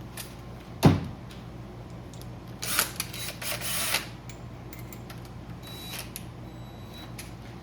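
Metal hand tools and sockets being handled on a workbench: a sharp knock about a second in, then a rattling clatter lasting about a second and a half, with a few light clicks after.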